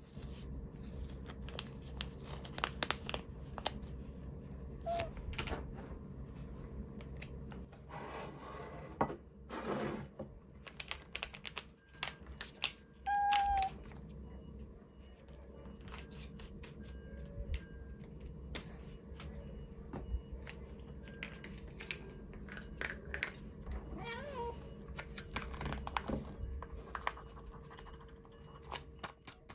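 Small objects being handled at close range: scattered clicks, taps and knocks, with a rustle about eight seconds in. A short cat meow comes about thirteen seconds in.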